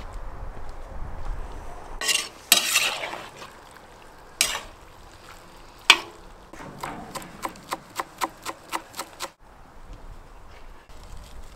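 Metal spoon stirring and scraping fried bison meat in a cast-iron kazan, with a sharp clank against the pot about halfway through. This is followed by a run of quick, even knocks, about four a second.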